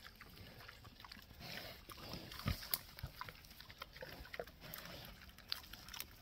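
Pigs eating grain feed off the ground: many short, irregular chewing smacks and snuffles, with a couple of louder low grunts about halfway through.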